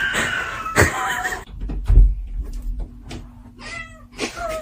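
A domestic cat meowing: a drawn-out call at the start, a shorter meow that bends up and down near the end, and a dull thump about two seconds in.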